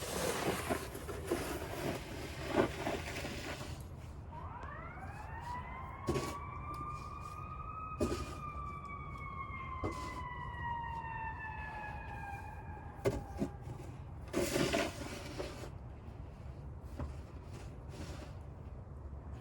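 An emergency-vehicle siren sounding one long wail: it rises over about a second, then falls slowly for about seven seconds and fades. Bursts of scraping noise come before it and again a little after it ends.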